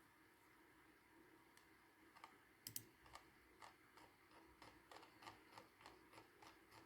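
Faint computer keyboard typing and mouse clicks: a sharp double click about two and a half seconds in, then a run of light key taps a few a second.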